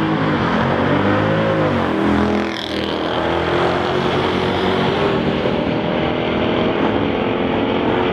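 Drag car accelerating hard down the strip at full throttle. Its engine note climbs, then drops sharply as it passes close by about two and a half seconds in. A steady engine note follows and rises slowly as the car keeps pulling away.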